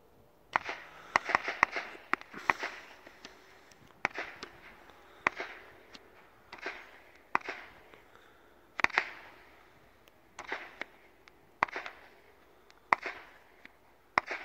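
Ghengis Fireworks category 4 firework cake firing: a run of sharp bangs starting about half a second in, with a quick cluster at first and then single shots about every second or so.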